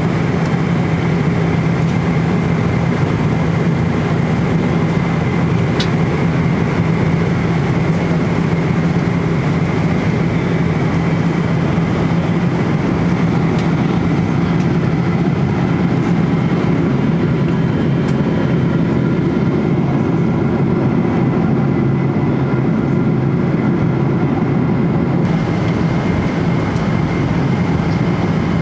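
Steady cabin noise inside a Boeing 777-300 airliner at cruise: an even rush of airflow with a constant low engine hum underneath.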